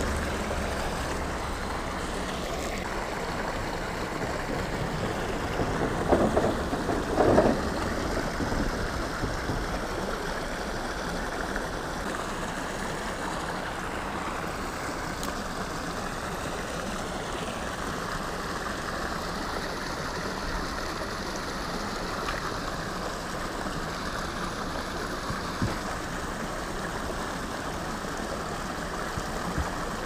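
Creek water rushing steadily where it pours over a low concrete spillway into the pool, with a couple of brief louder sounds about six to eight seconds in.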